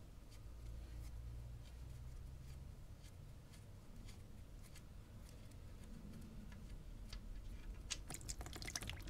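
Faint small clicks and ticks as the oil drain plug is turned out of a GM Ecotec engine's oil pan by hand, over a low steady hum. Near the end the clicks come thicker as old engine oil starts to run out into a plastic tub.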